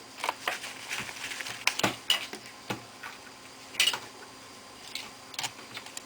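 Irregular light clicks and taps of small hard parts being handled while a Toshiba A300 laptop is put back together, likely its plastic casing parts and screws. The sharpest clicks come about two seconds in and again near four seconds.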